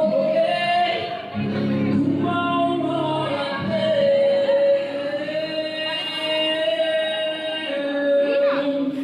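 A woman singing a song with musical accompaniment, holding long sustained notes, played over a sound system.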